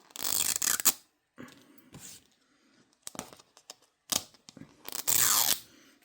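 Plastic shrink wrap being torn off a toy capsule ball. There are two loud rips, one at the start and one about five seconds in, with softer crinkling and clicks between them.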